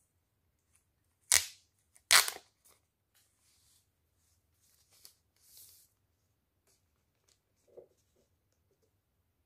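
Protective plastic film being peeled off a phone: two sharp ripping sounds about a second apart, starting a little over a second in, then fainter crinkles and rustles of the plastic.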